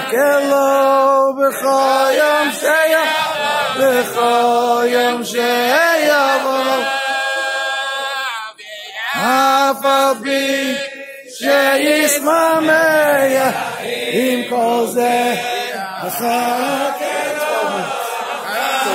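A large group of men singing together unaccompanied, a slow chant of long held notes, with a short break about halfway through.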